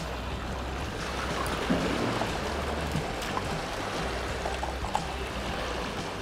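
Small sea waves lapping and splashing against shoreline rocks, a steady wash of water.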